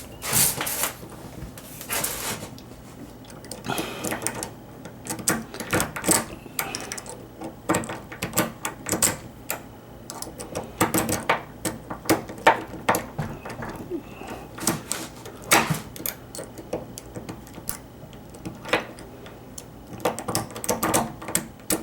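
Lock pick raking the pin tumblers of a Schlage deadbolt cylinder under tension: irregular metal clicks and short scrapes, some in quick runs, as the pins are worked toward the shear line.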